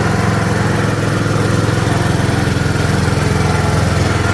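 Riding lawn mower engine running steadily, with an even low rapid pulsing, loud.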